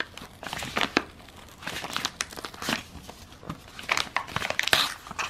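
Paper envelope crinkling and crackling in the hands as it is worked open, in irregular crackles and rustles.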